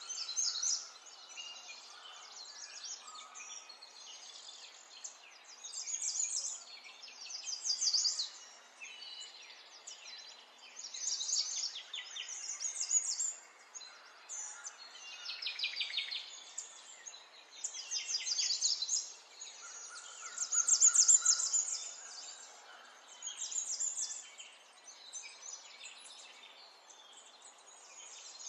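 Birdsong: a songbird sings phrases of rapid, high chirps and trills, a new phrase every second or two, over faint background hiss.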